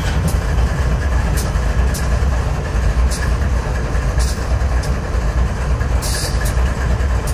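Diesel freight locomotives rolling slowly by: a steady, loud low engine rumble with a faint steady whine over it and a few scattered sharp clicks.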